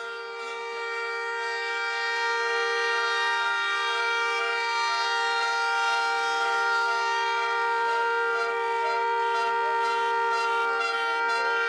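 A car horn held down in one long unbroken blast: two steady tones sounding together, without any rise or fall in pitch, growing louder over the first couple of seconds.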